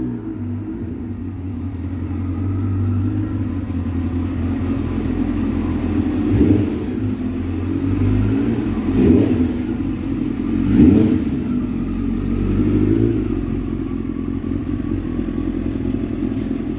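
Kawasaki ZX7's 750 cc inline-four engine running through its Muzzy aftermarket exhaust as the bike is ridden, the revs rising and falling several times.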